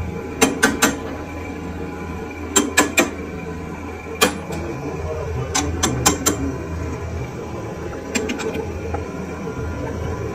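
Sharp metal clinks in quick groups of two or three from a chuck key working the jaws of a lathe's four-jaw chuck to clamp a thin steel ring, over a steady low workshop hum.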